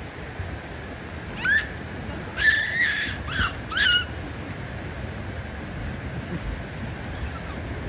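Japanese macaques giving four short, high-pitched calls about one and a half to four seconds in, one of them longer and held level, over steady background noise.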